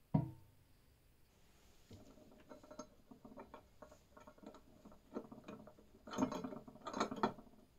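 Iron balance scale parts being handled: one sharp knock at the start, then a run of irregular metal clicks and rattles as the beam assembly is set onto the frame and moved on its pivots, with two louder clatters near the end.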